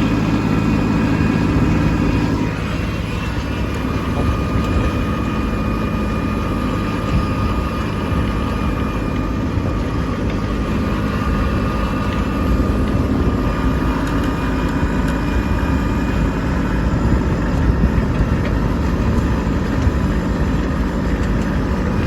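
Kubota B2601 compact tractor's three-cylinder diesel engine running steadily under load while blading snow, with a slight drop in level about two and a half seconds in.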